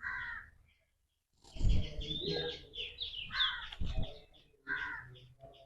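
Crows cawing a few times, each caw short, with smaller birds chirping between them and a couple of dull knocks.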